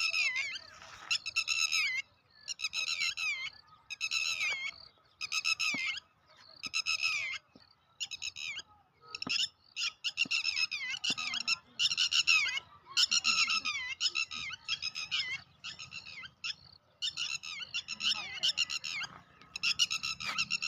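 Birds giving harsh, high alarm calls over and over, about one every second and a half, sometimes overlapping. The calls are distress at the nest, whose eggs have been picked up.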